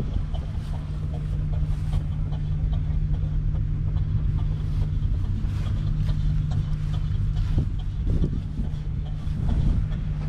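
Valtra T235 Active's 7.4-litre six-cylinder diesel engine idling steadily with an even low hum.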